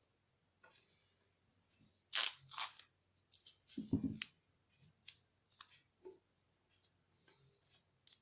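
Handling noises from work on wiring inside a computer case: scattered sharp clicks and light rustles, with a louder, duller knock about four seconds in.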